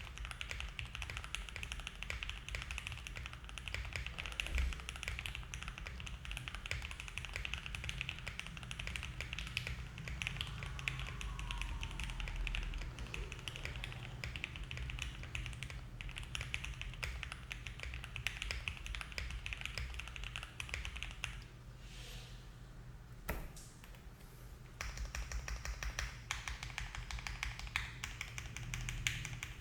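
Continuous typing on a Mode Envoy mechanical keyboard with lubed Oil King linear switches, an FR4 plate and GMK keycaps: a dense run of keystroke clacks that eases off for a few seconds a little past two-thirds of the way through, then picks up again.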